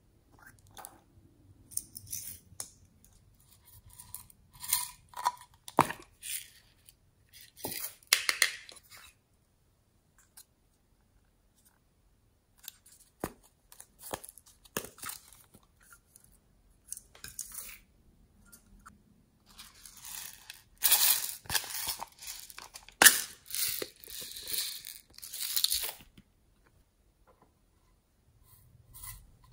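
Hands handling and opening small plastic containers and packaging: irregular bursts of rustling and scraping plastic with sharp clicks, busiest and loudest about two-thirds of the way through.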